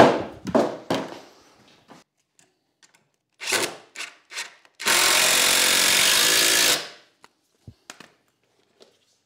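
A loud wooden knock with two smaller knocks as the 2x4 frame is handled, then, about halfway through, a cordless drill driving a screw into the timber steadily for about two seconds.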